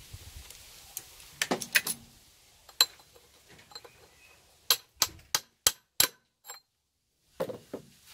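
Sharp metal-on-metal knocks as the helical oil pump drive gear of a Zundapp KS600 boxer engine is driven down onto the crankshaft: a few scattered clicks, then five quick ringing knocks, and two more near the end.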